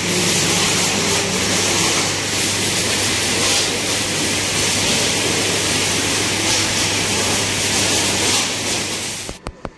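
Pressure washer spraying a motorcycle: a loud, steady hiss from the jet over a low motor hum. The spray starts suddenly and cuts off with a few clicks near the end.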